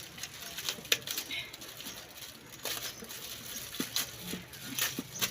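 Plastic parts of a garment steamer being handled and fitted together: scattered sharp clicks, the loudest about a second in, with light rustling between them.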